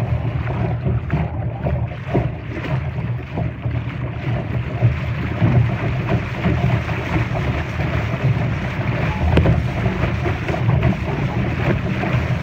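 Wind buffeting the microphone over water rushing and splashing against a Laser sailing dinghy under way: a steady rough rumble with small splashes.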